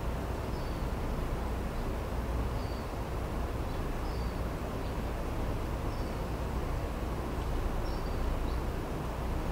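Outdoor ambience: a steady low rumble of background noise, with a small bird giving short high chirps every second or two, each stepping down in pitch.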